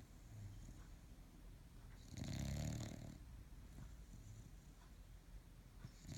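Sleeping bulldog snoring: one loud snore lasting about a second, about two seconds in, between quieter breaths, and another loud snore beginning at the very end.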